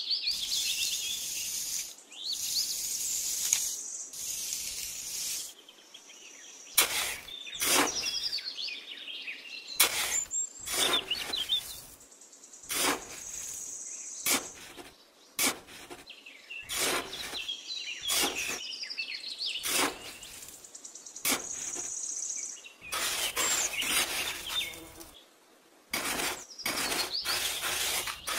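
Small hand trowel scraping and scooping sand in repeated short strokes, with birds chirping.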